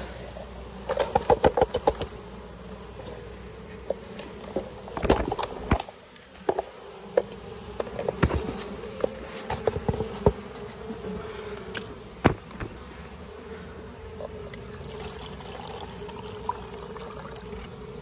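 Honeybees buzzing steadily around an opened mini mating nuc, with knocks and taps from the plastic frames and foam box parts being handled; a quick run of taps comes about a second in.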